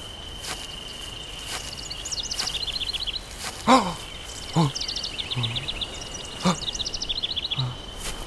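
Meadow ambience: a steady high insect tone and bursts of rapid bird trills, with several short grunts from a man, each falling in pitch, from about the middle on.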